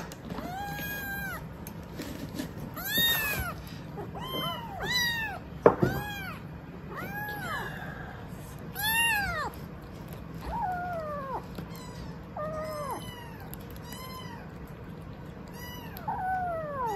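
Young kittens, about five weeks old, meowing over and over, roughly one meow a second, each call rising and then falling in pitch. One sharp knock comes about six seconds in.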